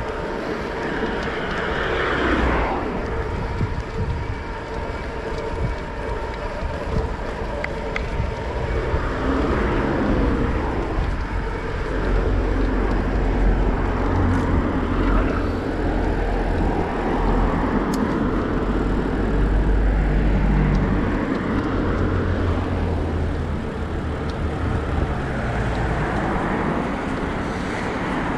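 Wind buffeting an action camera's microphone during a road ride, a steady low rumble under road and traffic noise, with rushing swells about two seconds in and again around ten seconds.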